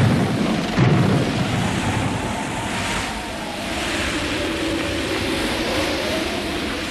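Cartoon sound effect of a rushing, howling whirlwind with a low rumble and a thud about a second in, under a faint, slowly wavering tone.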